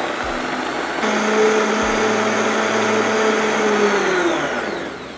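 Countertop blender motor running loud and steady as it purées a hot tomato gravy, stepping up in speed about a second in. Near the end it switches off and the whine falls away as the blades spin down.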